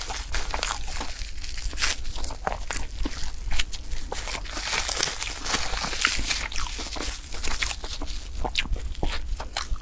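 Close-miked crinkling and crackling of clear plastic cling film wrapped around a block of purple sticky rice as it is handled and peeled back, mixed with chewing and wet mouth clicks from eating it.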